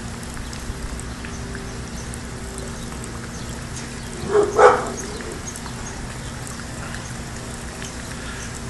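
Steady rush of wind ahead of a dust storm, with a faint steady hum under it; about four and a half seconds in a dog gives two quick short barks.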